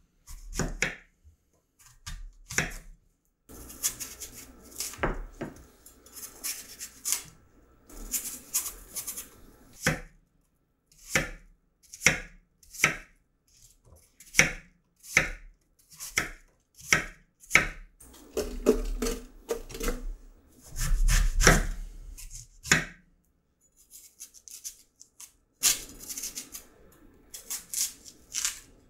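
A kitchen knife cutting an apple on a wooden cutting board: many crisp crunches and knocks of the blade against the board, about one a second, with light scraping between them. Near the end the knife shaves peel from a pear with a softer scraping sound.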